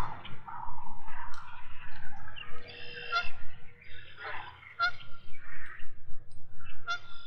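Geese honking: a run of short, repeated honks, several calls overlapping, over a low steady rumble.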